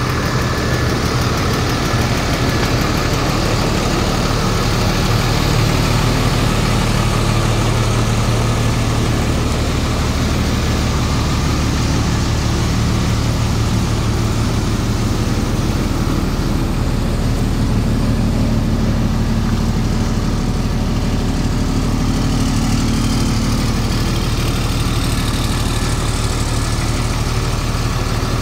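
Ford F650's Cummins ISB 5.9 inline-six turbo diesel idling steadily.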